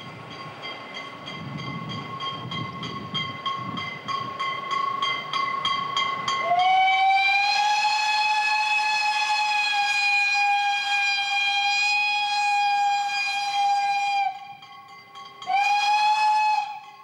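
Saxon-Meyer 0-4-4-0 compound articulated narrow-gauge steam locomotive working a freight train, its exhaust beating in a quick even rhythm. About six seconds in, its steam whistle sounds one long blast of about eight seconds, then a short second blast near the end.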